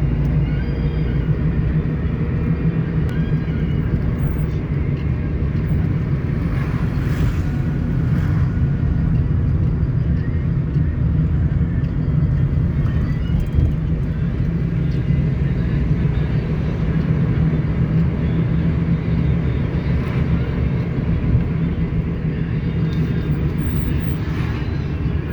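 Steady low rumble of a vehicle on the move, like road and engine noise heard from a car, running without a break.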